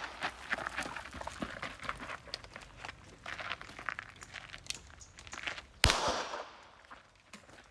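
Footsteps and shuffling as a shooter moves during a pistol drill, then a single pistol shot about six seconds in, with a short echo trailing off.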